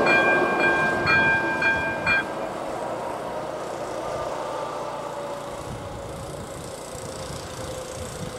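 AŽD ZV02 electronic level-crossing bell ringing in even strokes about twice a second, cutting off a little over two seconds in as the crossing warning ends. Under it a passenger train's running noise fades steadily as the train moves away.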